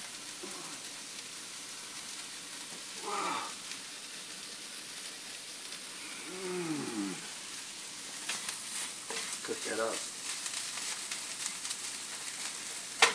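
Frozen chopped peppers and onions sizzling steadily in a very hot nonstick frying pan, with a few light clicks near the end as they are stirred.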